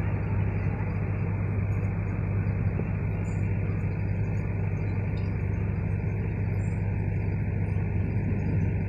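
Diesel engine of a GWR High Speed Train's Class 43 power car running steadily as the train pulls away, a constant low drone.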